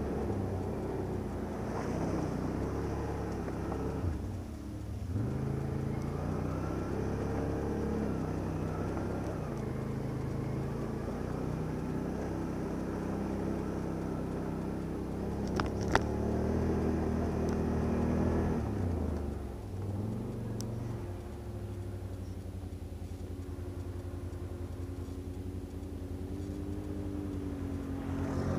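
ATV engine running while the quad is ridden along a rough, muddy track, its pitch rising and falling with the throttle and then settling into a quieter, steadier run in the last third. There is one sharp knock about halfway through.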